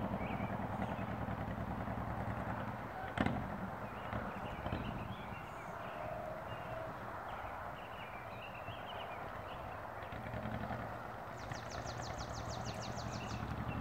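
Motorcycle engine running at a distance as the bike moves away, fading and then growing louder again near the end. Birds chirp, with a rapid high trill near the end.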